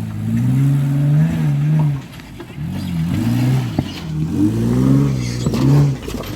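Off-road 4x4's engine revving up and down again and again, pitch rising and falling several times, with a brief drop in throttle about two seconds in.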